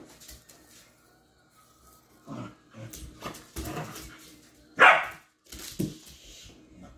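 A dog barking, several short barks with the loudest just before five seconds in.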